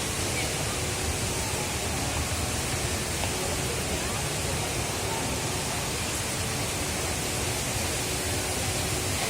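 Steady rush of falling water from the Rain Vortex, a very tall indoor waterfall, pouring into its basin.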